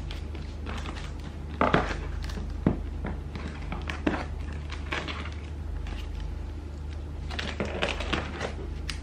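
Fingers scratching and picking at plastic packing tape on a cardboard box, giving irregular crackles and taps of tape and cardboard, busiest near the end, over a steady low hum.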